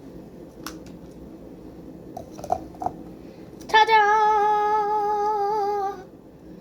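A girl's voice singing a drawn-out "Ta-da!" on one held, slightly wavering note for about two seconds, starting just before the midpoint. Before it there are only a few faint taps.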